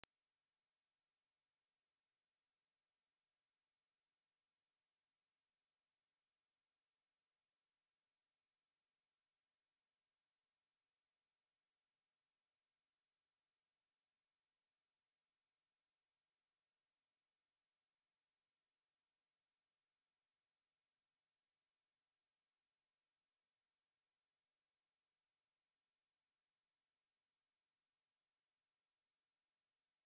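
A single steady, high-pitched 9473 Hz sine-wave test tone, held at an even level without any change. It is a speaker test tone of the kind played to shake water and dust out of a phone speaker.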